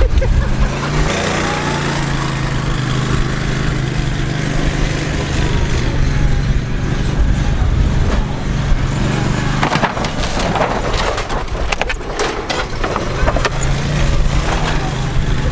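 A vehicle engine running steadily under wind rumble on the microphone, with a cluster of sharp cracking and crunching knocks about ten to thirteen seconds in, as a vehicle drives over a Geo Metro and crushes its body.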